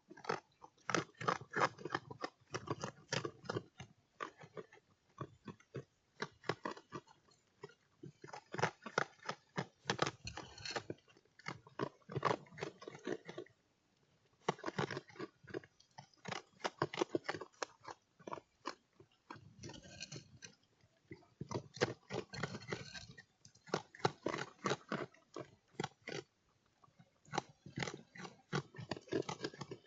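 An animal chewing and crunching food in bouts of rapid crunches, each a second or a few seconds long, separated by short pauses.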